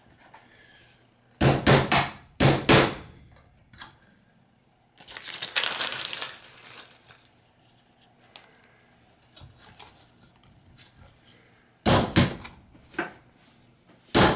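Small tack hammer tapping brass eyelets into a wooden beehive frame end bar: a cluster of quick taps about a second and a half in, another near the end. In between there is a second-long rustling scrape.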